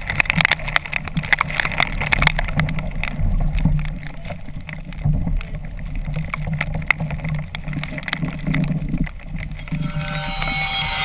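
Storm wind and choppy waves splashing around a tandem sailing kayak, with many sharp taps of rain and spray hitting the camera housing. Music fades in near the end.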